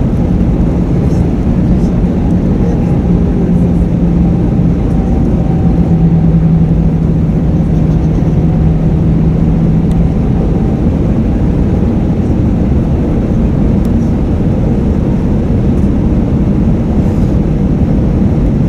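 Airbus A320 cabin noise in flight: the steady rumble and rush of engines and airflow. A low hum over it drops slightly in pitch about five seconds in and fades out about ten seconds in.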